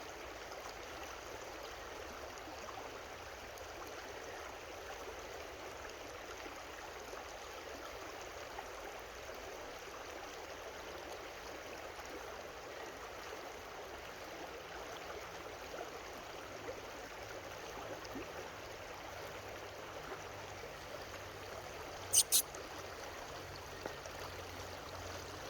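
Creek water running steadily, an even rushing. Near the end, two short sharp clicks close together.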